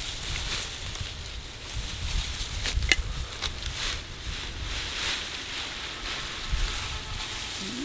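Grass and leaves rustling as grass is cut and gathered by hand, in many short irregular crackles, with wind rumbling on the microphone. A sharp click stands out just before three seconds in.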